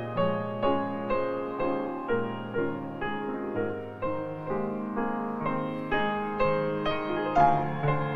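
Background music: a gentle piano piece, with a new note struck about twice a second.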